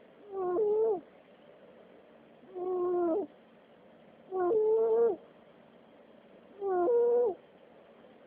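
A cat snoring: four pitched snores about two seconds apart, one with each breath, each under a second long and dropping in pitch at its end.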